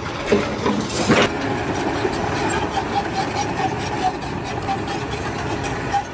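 An engine running steadily, with a sharp knock about a second in.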